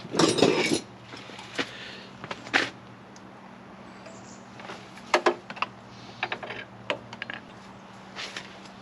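A short loud clatter near the start, then scattered light clicks and knocks of hands and tools working on the excavator, over a steady low hum.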